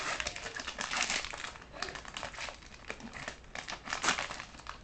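Foil wrapper of a 2010-11 SP Authentic hockey card pack crinkling as it is pulled open by hand, in irregular bursts that are loudest at the start and again about four seconds in.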